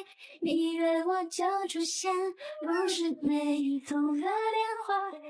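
Background music: a song sung by a high, childlike female voice in held, gliding notes.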